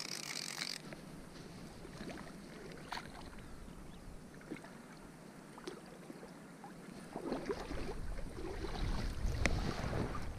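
Shallow river water splashing and lapping as a hooked rainbow trout is led in over cobbles, with scattered small knocks. The splashing grows louder and busier about seven seconds in.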